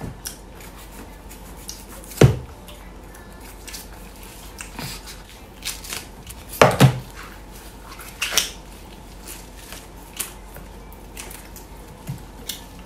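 A knife cutting and peeling the husk off a boiled bamboo shoot: scattered soft cuts and scrapes with a few sharper knocks, the loudest about two seconds in and a close pair near the middle.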